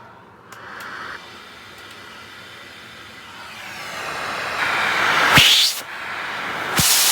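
Central vacuum hose sucking air: a hiss that swells, with two sharp knocks a second and a half apart, each followed by a loud rush of air that cuts off suddenly.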